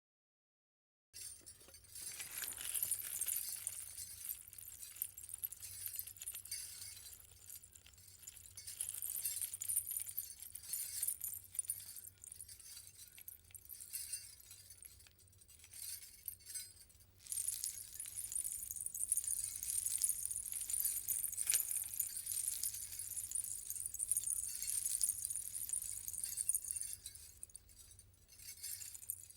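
Footsteps sound effect: a dense, continuous run of small crunching clicks, mostly very high-pitched, swelling and easing every few seconds. It starts after about a second of silence.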